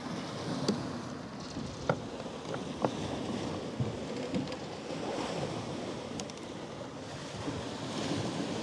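Steady wind and rushing sea water around a catamaran under way, with a few sharp clicks in the first three seconds from a screwdriver working on a deck rope clutch.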